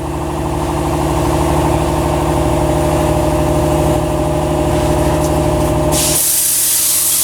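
A steady mechanical hum with a fast low pulse, like a running motor, cuts off about six seconds in and is replaced by a loud, steady hiss of air.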